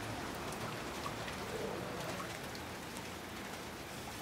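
Rain falling steadily: an even hiss with scattered small ticks of drops striking hard surfaces.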